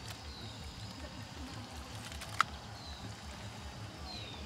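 Steady low rhythmic throb of a distant engine, with a few short falling bird chirps and one sharp click about halfway through.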